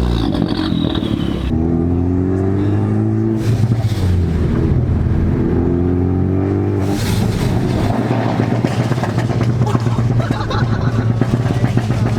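Ford Focus ST engine accelerating away, its pitch rising twice with a drop between as it shifts up a gear, then settling into a steady drone at cruising speed.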